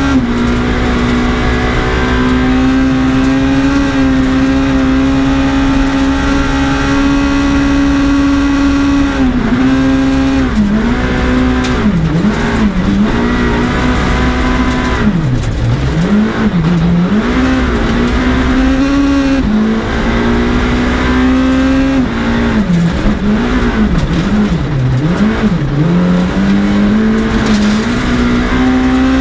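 Skoda Fabia S2000 rally car's 2.0-litre four-cylinder engine, heard from inside the cabin, held at high revs for the first several seconds. The revs then fall and climb back again and again as the car slows for the bends, over steady noise from the tyres on gravel.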